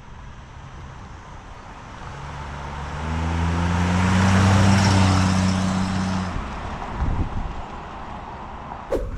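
1969 Pontiac Firebird's 230 cubic inch overhead-cam inline six driving past at a steady, even engine note. The engine and tyre noise swell as it approaches, are loudest about four and a half seconds in, then fade as it moves away.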